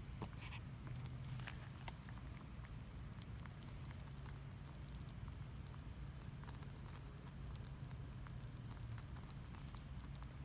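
Faint, irregular crackles and small pops over a low steady hum, from a wood cooking fire under a pot.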